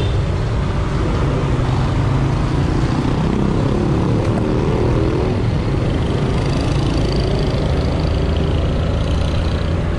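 Motor scooter being ridden along a road: steady engine and road noise with no break.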